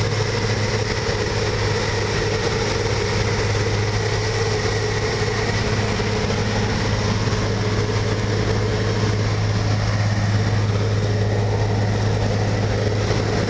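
Asphalt milling machine running steadily while it cuts the road surface: a constant heavy diesel drone with a continuous grinding noise from the cutting drum and conveyor.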